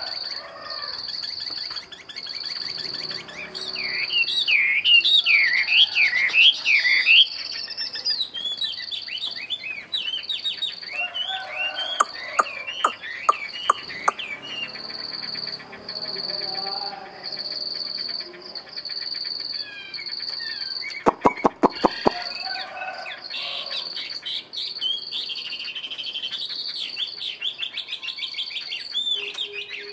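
Chinese hwamei singing: varied, gliding warbled phrases, loudest for a few seconds near the start and again in the last third. A steady pulsing high tone runs behind, and two runs of sharp clicks come near the middle and about two-thirds through.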